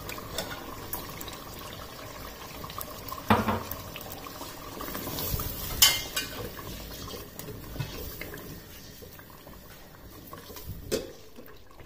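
Wooden spoon stirring a wet, simmering curry in a stainless steel pot, with a few sharp knocks of the spoon against the pot.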